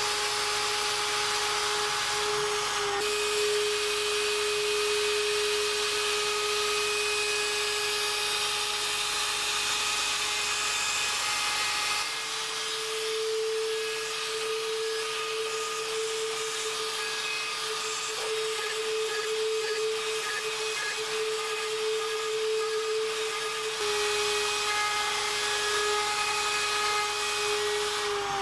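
Mafell FM 1000 PV-WS router spindle on a DIY CNC mill running with a steady high whine while its end mill cuts 5083 aluminium, with a hiss of cutting noise over it. The whine steps slightly in pitch a couple of times.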